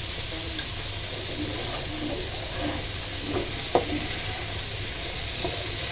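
Vegetable stalks stir-frying in oil in a wok: a steady sizzle as a wooden spatula turns them. There is a short knock of the spatula against the pan about two-thirds of the way through.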